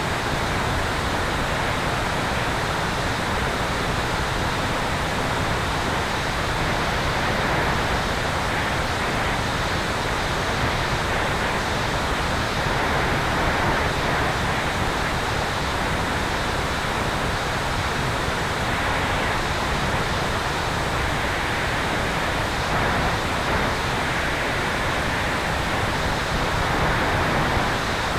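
Steady rush of wind over a camera mounted on the tail of a Sonex Xenos electric airplane in flight. It is an even roar of air with no distinct motor or propeller note standing out.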